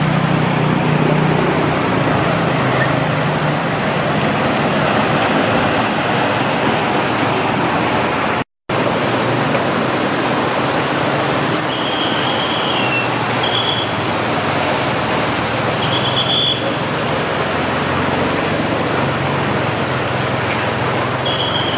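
Road traffic wading through a flooded street: scooter and car engines running over a steady rush and splash of water churned up by the wheels. A few short high beeps come in the second half, and the sound cuts out completely for a moment about a third of the way in.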